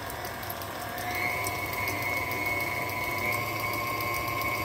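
KitchenAid Classic Plus stand mixer running, mixing oats into cookie dough, its motor giving a steady whine that grows a little louder about a second in.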